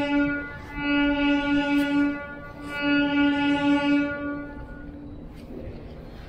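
A horn sounding a series of long blasts on one steady note, each about a second and a half with short breaks between, the last fading out about five seconds in.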